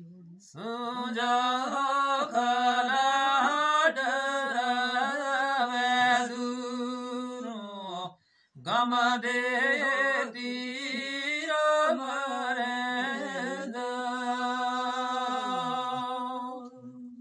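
A man singing a Gojri qissa (narrative folk verse) unaccompanied, in long melodic lines that keep returning to one low held note. There are two phrases, with a brief break for breath about eight seconds in.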